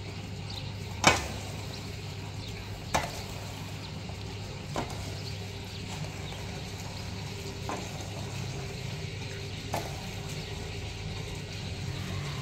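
A steel shovel scraping and pushing wet concrete, with five sharp knocks of the blade, the loudest about a second in. A steady low hum runs underneath.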